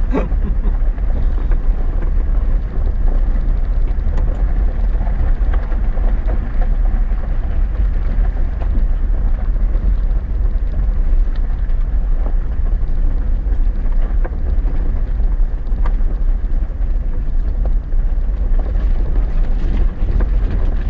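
Chevy Silverado 4x4 pickup driving over a rough, rocky dirt road, heard from inside the cab: a steady low rumble of engine and tyres, with a few scattered knocks and rattles from the rocks.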